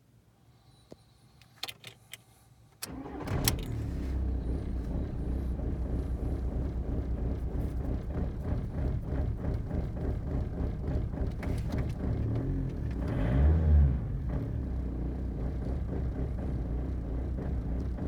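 A few clicks, then a 2002 VW Jetta TDI's 1.9-litre four-cylinder turbodiesel cranks briefly and catches about three seconds in: a normal start. It settles into a steady diesel idle, with a short rise in revs about two-thirds of the way through before dropping back to idle.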